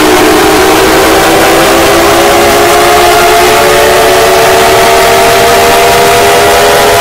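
Loud, distorted emergency-alert alarm siren: several tones sounding together that dip briefly near the start, then slowly rise in pitch, over a heavy hiss.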